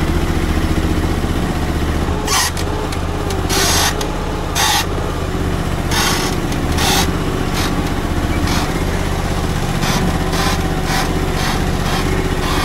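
Stand-on mini loader's V-twin engine running steadily as the loader drives with a full bucket, with about a dozen short hisses spread through, the longest about four seconds in.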